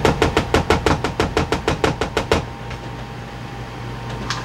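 A black measuring cup patting and spreading barbecue sauce over meatloaf mixture in a plastic mixing bowl. It makes a quick, even run of taps and knocks, about seven a second, that stops after about two and a half seconds, with a couple of single knocks near the end.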